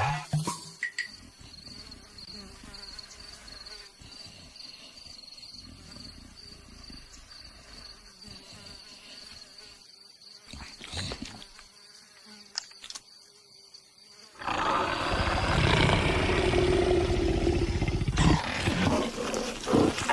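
A faint steady high tone, then a loud, sustained animal roar from about fourteen seconds in.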